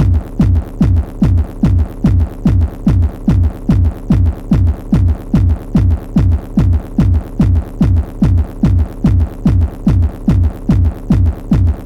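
Improvised electronic music: a synthesized kick drum pounding about three times a second, each hit dropping in pitch, over a steady low bass drone.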